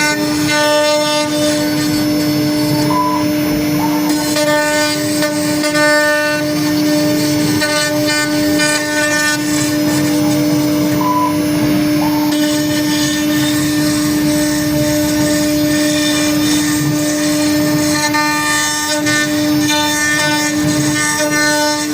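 CNC router spindle running at a steady whining pitch while it machines wood, with a fainter cutting sound rising and falling over it.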